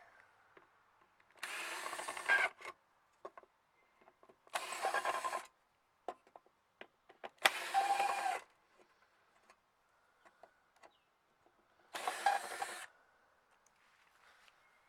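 Electric screwdriver run in four short bursts of about a second each, backing out screws, with small clicks of handling in between.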